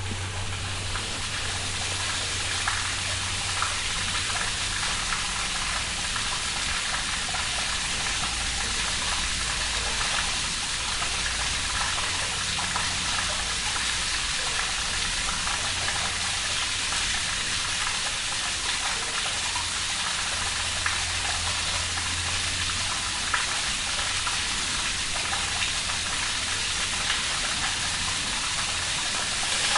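Water rushing through a sewer: a steady, unbroken hiss of flowing water, with a low hum underneath and a few faint ticks.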